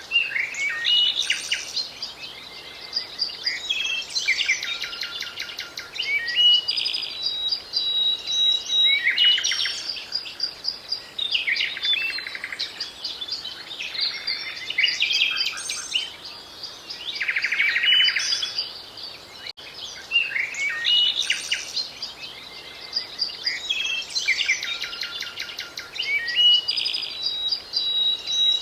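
Songbirds singing: bursts of rapid trills, chirps and held whistles in varied phrases, with short gaps between them. The song is typical of a spring dawn chorus. About two-thirds of the way through, a brief dropout comes before the same phrases start over, as in a looped recording.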